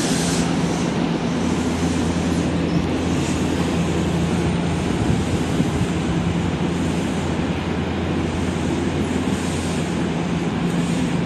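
Odakyu 8000-series electric train standing at a station platform just after arriving, its onboard equipment humming steadily. There is a low drone and a few faint steady tones under a constant wind-like rush.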